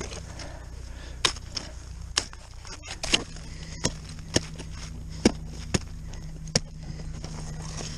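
Sharp, irregular clicks and knocks of ice-climbing gear (ice tools, crampons, carabiners), about nine in all. A low steady hum sets in about three seconds in.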